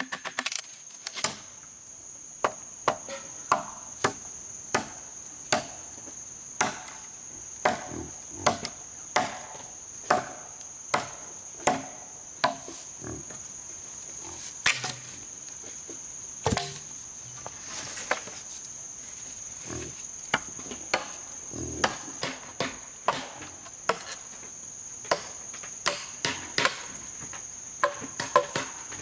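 Machete chopping into wood and bamboo, a sharp strike roughly every second. Insects keep up a steady high-pitched call underneath.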